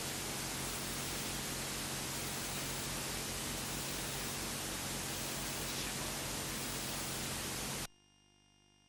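Steady static hiss with a low electrical hum beneath it. It cuts off abruptly near the end, leaving only a very faint hum.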